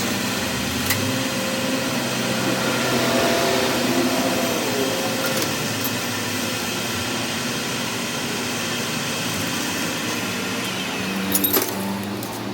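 A workshop machine running steadily with a droning hum of several steady tones. There is a sharp click about a second in and a quick rattle of clicks near the end.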